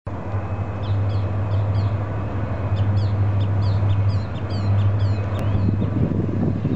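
Birds chirping over and over with short falling calls, over a steady low drone from the diesel locomotives of a distant approaching freight train.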